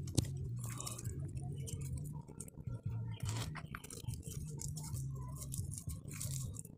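Clear plastic tying strip crinkling and rustling in the fingers as it is wrapped and pulled tight around a bonsai trunk, with many small crackles and clicks. A steady low hum runs underneath.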